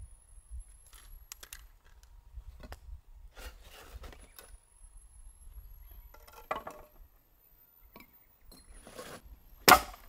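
Scattered small scrapes, rustles and clicks as kindling and paper are pushed into a stacked-brick fire pit, then a sharp wooden knock near the end as a wooden board is lifted from a pile.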